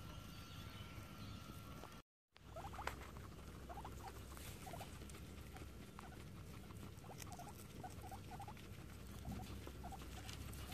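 Guinea pigs grazing on fresh grass: soft, fast crunching and tearing of grass blades, with a string of short, high little squeaks. The sound cuts out briefly about two seconds in.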